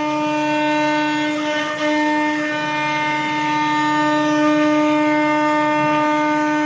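CNC router spindle running at a steady high speed, a constant whine with overtones, while its end mill cuts grooves into composite panel, with a rough cutting noise underneath.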